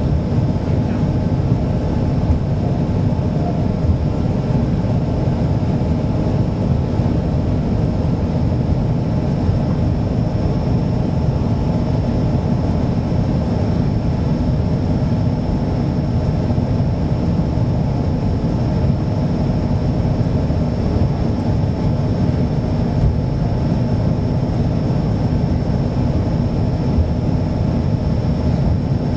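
Hydrofoil's engines running steadily, a dense, unchanging heavy engine noise with a thin, steady high whine above it.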